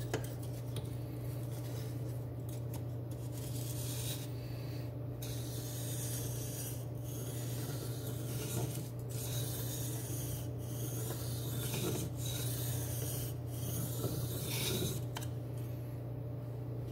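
D2 steel knife blade, held at a fixed angle in a DMT aligner clamp, scraping back and forth across a King K80 combination whetstone in repeated gritty strokes about every second or two. These are passes made to check that the bevel angle is right. The strokes stop shortly before the end.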